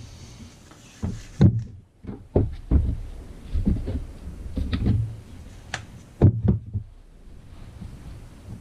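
Irregular knocks, clunks and clicks of chainsaw parts and tools being handled on a workbench during reassembly, with two louder knocks about one and a half and six seconds in.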